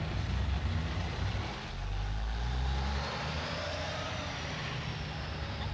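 Street traffic: a motor vehicle's engine rumbling past over a steady hum of city noise.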